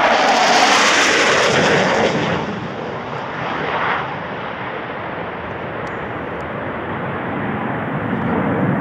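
Jet noise from a Panavia Tornado GR4's twin RB199 turbofans as the jet passes at low level: loud and hissing for the first two seconds, then dropping to a duller, steady rumble as the jet flies away down the valley.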